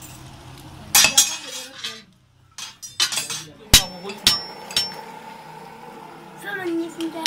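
Hand hammer and tools striking sheet metal on a blacksmith's anvil: a scattering of sharp metallic clinks and blows, several ringing briefly, as scrap steel is shaped into a dundun bell.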